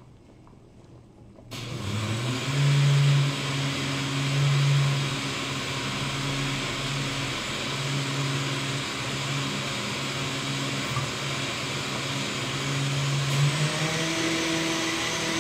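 Electric blender motor running out of sight: it is stopped at first, starts up abruptly about a second and a half in with a brief rise in pitch, then runs steadily with a low hum. Its pitch changes near the end.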